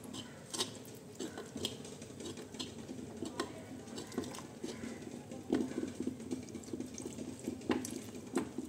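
Water poured from a steel tumbler into gram flour in a clay bowl and stirred by hand into bajji batter, with many small taps and clicks of the tumbler against the bowl.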